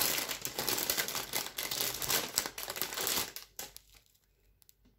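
Small zip-lock plastic bags of resin diamond-painting drills crinkling as they are handled. The crinkling stops about three and a half seconds in, leaving a few faint clicks.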